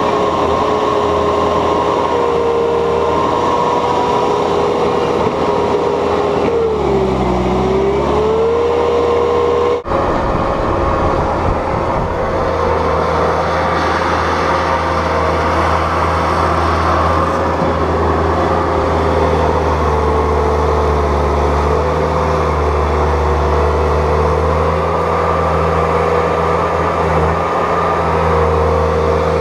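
Bobcat S250 skid steer's diesel engine and hydraulics running under load while pushing heavy wet loam, a steady drone with a whine over it. The whine and engine briefly drop in pitch about seven seconds in and recover, and the sound breaks off for an instant near ten seconds.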